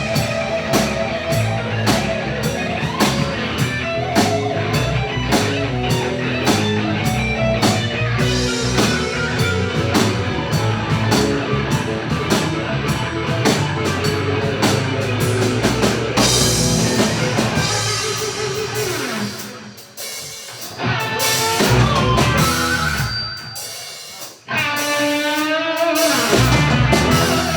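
A live rock band's instrumental break, with electric guitar over a drum kit. The full band thins out about two-thirds of the way through into sparser, stop-start playing, with notes sliding up and down near the end.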